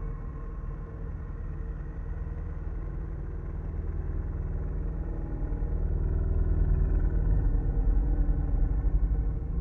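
Dark ambient drone: a deep, fluttering low rumble that swells louder about halfway through, with faint higher tones that fade early on.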